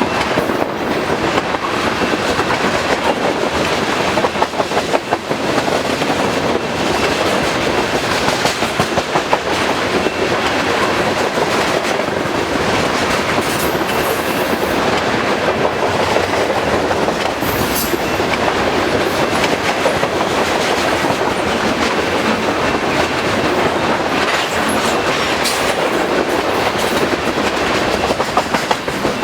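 Freight cars of a long manifest train rolling past at speed: a steady heavy rumble with the clickety-clack of steel wheels over rail joints. Brief high squeals come a little before the middle and again shortly after.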